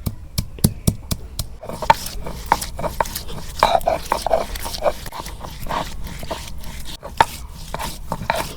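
Stone on a shil-pata grinding slab knocking steadily, about four strikes a second, as garlic and spices are crushed; it stops about a second and a half in. After that come irregular whining, voice-like sounds.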